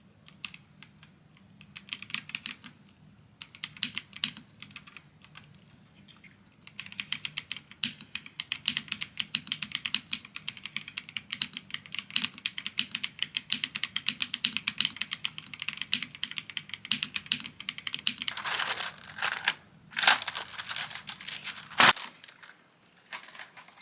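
Typing on a computer keyboard: scattered single keystrokes, then about seven seconds in a fast, continuous run of key clicks lasting around ten seconds, with a few louder strokes near the end.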